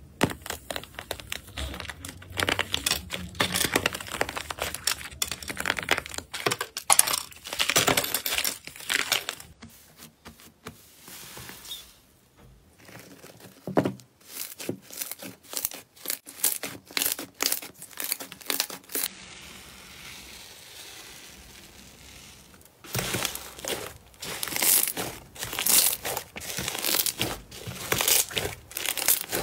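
Hands squeezing, pulling apart and kneading slime and soft clay, making crackling, crinkling and tearing sounds. The crackling is quieter for several seconds in the middle, then loud again near the end.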